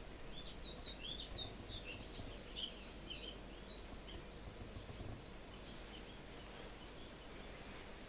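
European pied flycatcher singing faintly through an open window: one quick phrase of varied high notes lasting about three seconds, followed a little later by a short run of thin, very high notes, over a steady background hiss.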